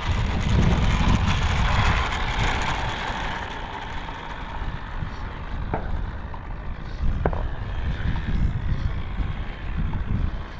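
Wind buffeting the microphone as a steady low rumble and hiss, heaviest over the first few seconds. Two faint clicks come about six and seven seconds in.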